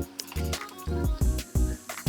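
Background music with a steady beat and a heavy bass thump on each beat.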